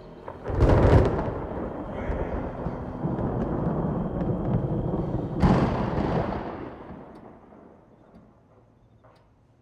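Two heavy booms about five seconds apart, the first the loudest, each followed by a deep rumble that carries on and then fades away over the last few seconds.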